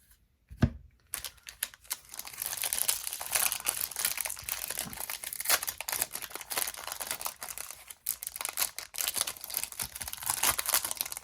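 A single thump, then a trading-card pack's foil wrapper being torn open and crinkled by hand in dense, irregular crackles.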